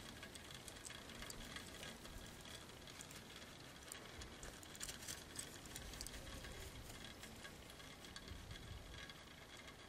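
Faint crunching footsteps in snow: light, irregular ticks and crunches, a little busier about five seconds in, over a faint low rumble.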